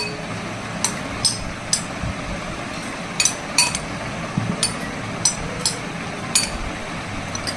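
Steel spoon clinking against a glass bowl while stirring a salad: about ten sharp, irregularly spaced clinks with a short ring, over a steady hiss.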